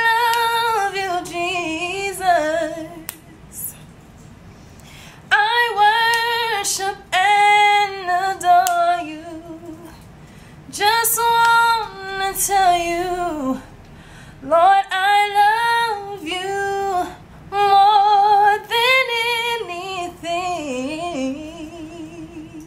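A woman singing unaccompanied: five long, drawn-out phrases with wavering, sliding runs in pitch, separated by short pauses for breath.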